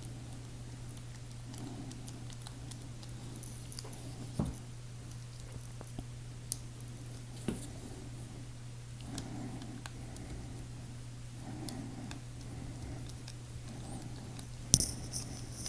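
Small metal knife parts and tools clicking and tapping as a folding knife is reassembled: a few sharp clicks, the loudest near the end, over a steady low hum.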